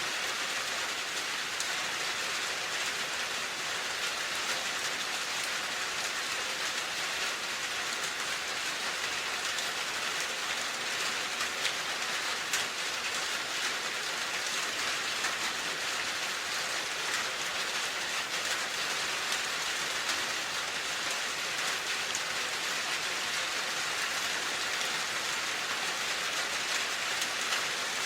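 Steady rain falling, a dense even patter of drops on a surface.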